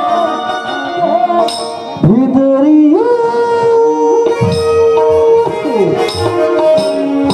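Instrumental interlude of a live Chhattisgarhi folk song: an electronic keyboard plays a melody with long held, sliding notes over hand-drum strokes.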